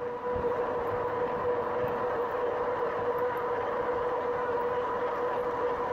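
2018 RadRover e-bike's geared hub motor whining at a steady pitch while cruising, over a haze of road and wind noise.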